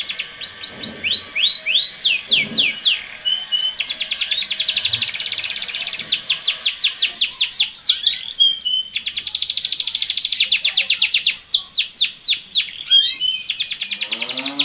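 Domestic canaries singing a courtship song. Long, fast rolling trills alternate with slower downward-sweeping notes and short high whistles, with brief pauses between phrases.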